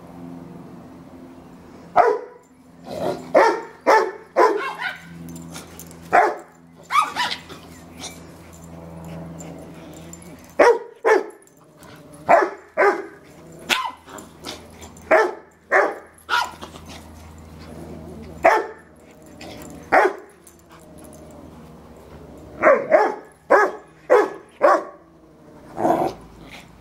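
Two dogs, a Yorkshire terrier and a Rottweiler, barking in play: about two dozen sharp barks, many in quick runs of two to four, with low growling between them.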